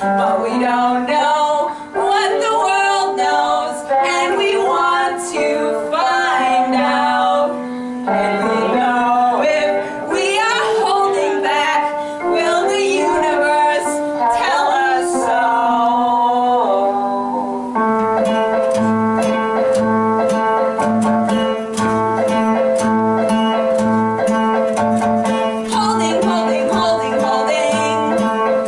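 Acoustic guitar playing with a singing melody over it; a little past halfway the singing stops and the guitar carries on alone in a steady strummed rhythm.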